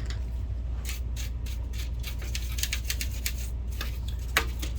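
Hands handling and rubbing a dusty plastic projector part: a run of short scraping and rustling strokes, with one sharp click near the end, over a steady low electrical hum.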